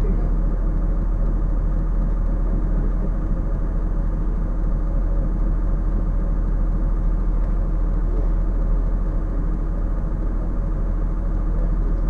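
Cummins ISC diesel engine of a 2002 Blue Bird CS transit bus running steadily, heard inside the passenger cabin as a deep, even drone.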